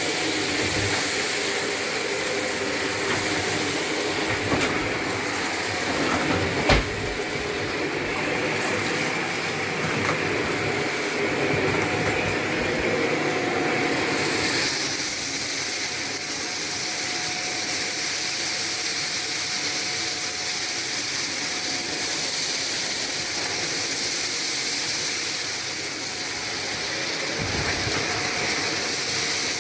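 Shark vacuum cleaner running on a hard floor and sucking up scattered debris, with a single sharp knock about seven seconds in. About halfway through, the sound shifts to a louder, higher hiss.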